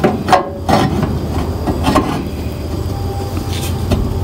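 Hand-made steel frame section clinking and scraping against the 1958 VW bus's frame as it is pushed into position by hand, with a few sharp metal knocks, most of them in the first second, over a steady low rumble.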